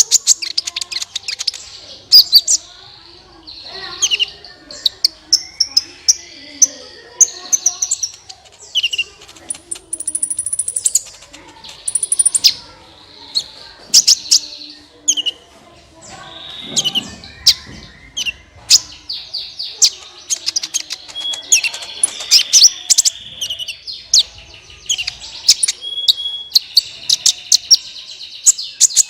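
Sunbird song, the bird Indonesian keepers call 'kolibri': a rapid run of sharp, high chirps and short trills, packed closely together.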